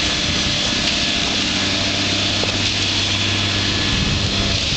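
An engine idling steadily, with a constant hum and hiss.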